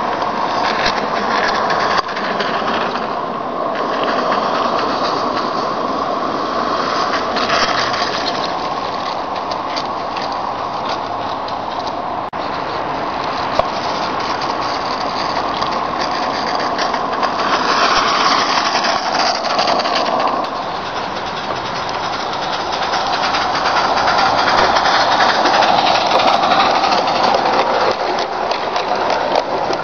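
Small live-steam garden-railway locomotive running on 32 mm gauge track, with a rapid, steady chuffing exhaust and wheels running over the rails. It grows louder as the train passes close by near the end.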